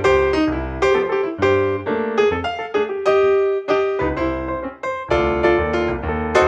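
Background piano music: a steady run of struck notes, each fading before the next.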